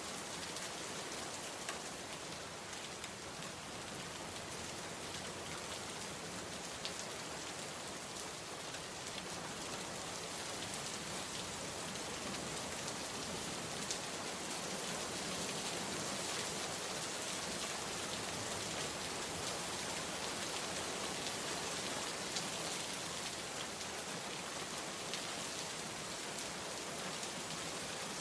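Steady rain falling, an even hiss with scattered drops hitting a surface.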